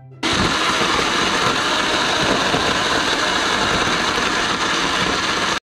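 Countertop blender motor running at full speed, blending a jug of sour sweets and energy drink into a green slush. It is loud and steady, starts about a quarter second in and cuts off abruptly just before the end.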